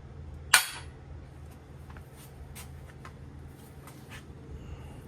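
A sharp metallic clank about half a second in, followed by several light clicks, as metal engine parts are handled during crankshaft and main bearing installation, over a steady low hum.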